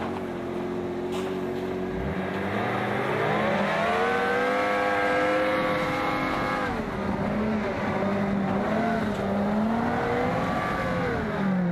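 Engine of a military off-road 4x4 working hard under load as it climbs through deep snow. The revs rise steeply about three seconds in, hold high, drop back about seven seconds in, then climb and fall once more near the end.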